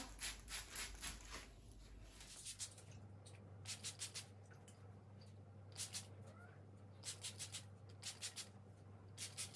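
Faint short hisses of a hand spray bottle misting herbal hair water onto damp hair, the spritzes coming in quick runs of two to five with short gaps between, over a faint steady low hum.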